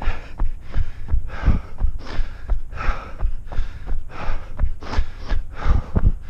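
A runner's hard breathing over the steady thud of running footsteps, about three footfalls a second.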